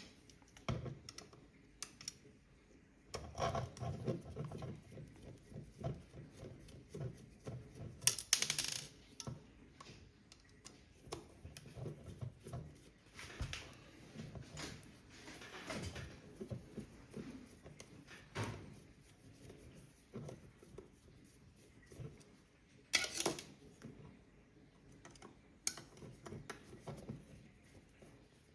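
Hands working on a plastic power-tool battery pack with small tools: irregular clicks, taps and knocks, with two louder short scrapes, one about a third of the way in and one about three-quarters through.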